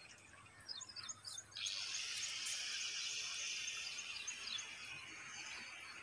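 Birds chirping in short high notes, then a steady high-pitched buzz starts suddenly about one and a half seconds in and runs on over the chirps, louder than they are.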